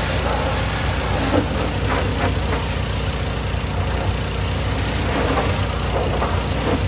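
Hot water pressure washer's engine running steadily, with the hiss of the high-pressure spray.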